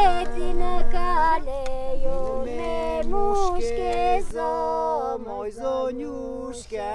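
Voices singing a song together without instruments, with a low note held steady beneath a moving sung melody.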